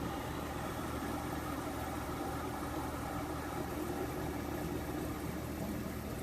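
A 2011 Frigidaire 12,000 BTU window air conditioner running steadily, with a low compressor hum under the even rush of its fan.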